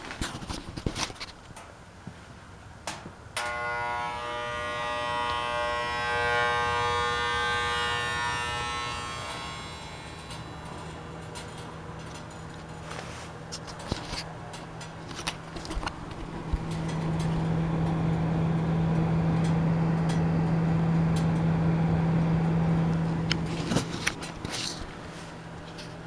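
Vintage Manning Bowman Instant Heat electric space heater running. A sharp click about three seconds in sets off a whine of several even tones that fades away over about six seconds. A steady low hum follows and is loudest for several seconds in the second half. A few light handling clicks come near the start and the end.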